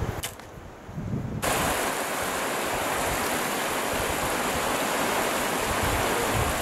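Steady, loud rushing of river water that cuts in suddenly about a second and a half in, after a brief click and a quieter stretch.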